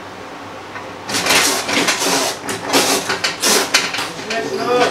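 A restrained cat hissing and spitting in a run of sharp, loud bursts starting about a second in, with a short pitched cry near the end.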